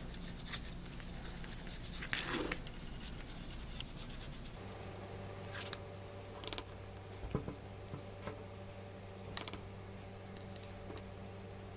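Faint scratching and small clicks of a thin paintbrush dabbing and dragging on a hollow plastic skeleton prop, with fingers shifting their grip on the plastic. A steady low hum joins about a third of the way in.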